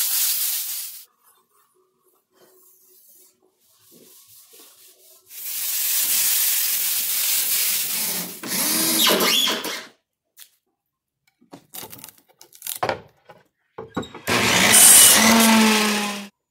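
A run of woodshop tool sounds: an air spray gun hissing for about a second, a longer hiss from about five seconds in, a few sharp clicks around twelve to thirteen seconds, then a power tool running with a steady hum for about two seconds near the end.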